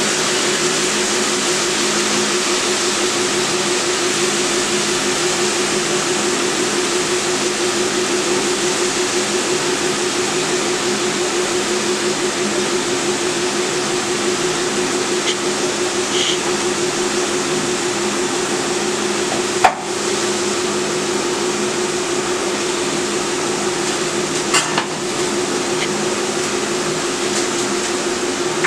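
A steady mechanical hum with a rushing noise, like a motor-driven fan running, with two short sharp knocks in the second half.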